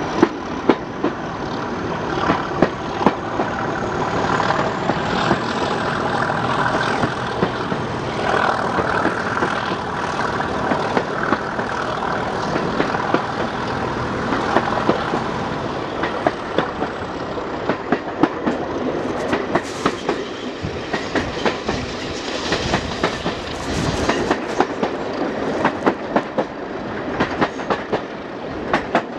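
Class 37 diesel locomotive's English Electric V12 engine working hard under power, heard from an open carriage window, with the coach wheels clicking over rail joints. A high whistle climbs over the first few seconds, holds, then falls away a little past halfway.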